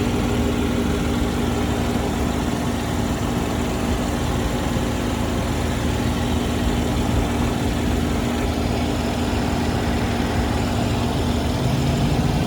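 Car running with a steady engine hum; a lower tone rises slightly near the end.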